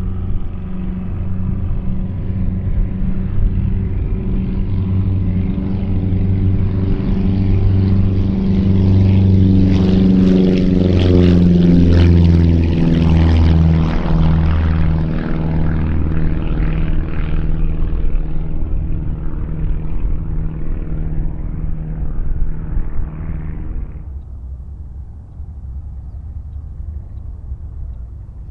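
Light propeller airplane's engine and propeller going past, growing louder to a peak about halfway, the pitch dropping as it goes by, then falling away abruptly near the end.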